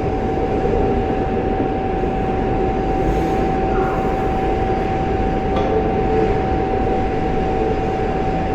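Solid-wire MIG (GMAW) welding arc running steadily, a continuous noise with a constant hum over it.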